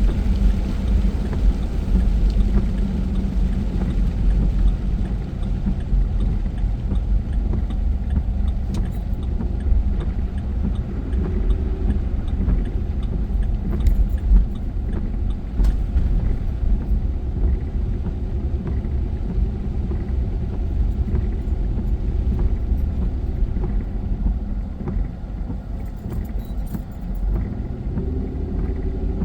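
A car being driven, with a steady low rumble of engine and road noise. Near the end the engine's pitch rises as the car speeds up.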